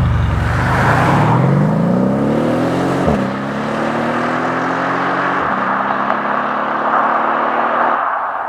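Mercedes-Benz S63 AMG's V8 accelerating hard: the engine note climbs in pitch, drops sharply at two upshifts, about three and five and a half seconds in, then holds steady.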